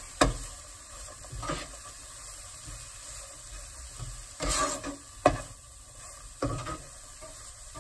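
Chopped carrot, leek and onion sizzling in a non-stick frying pan as they are stirred and tossed with a spatula, with several sharp knocks of the spatula against the pan.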